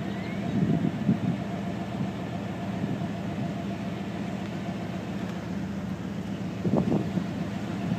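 Vehicle engine idling steadily, heard from inside the cab.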